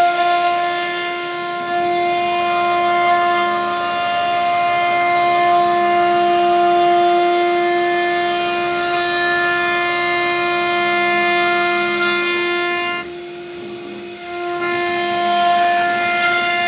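CNC router spindle whining steadily at a high pitch as its bit carves wood, with a light hiss of cutting beneath. About thirteen seconds in, the whine turns quieter for a second or two, then comes back.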